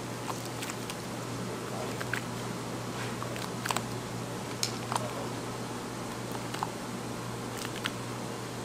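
Wet squishing and scattered soft clicks as gloved hands squeeze and mix chopped kimchi into a thick pancake batter in a stainless steel bowl, over a steady background hum.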